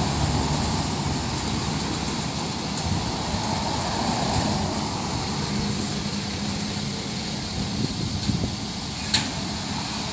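A car passes close by, its engine and tyres fading away over the first few seconds. Under it runs a steady low engine hum and a noisy haze, and a single sharp click comes near the end.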